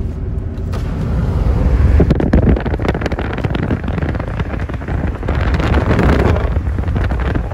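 Wind buffeting the microphone inside a moving car, a rough gusty rush that comes in about a second in, over the steady low rumble of road and engine noise.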